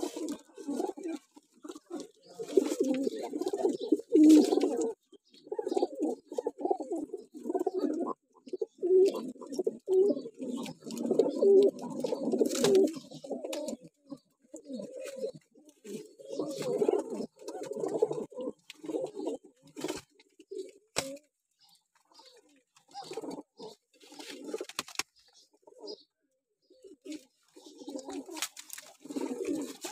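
Domestic pigeons (patti walay low-flyers) cooing, several birds at once, in low rolling bursts of a second or two with short gaps between them. A few sharp clicks fall in between.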